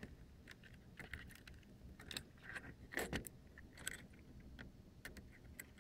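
Faint, scattered clicks and light scrapes of a probing tool working at a cable connector inside an open MacBook.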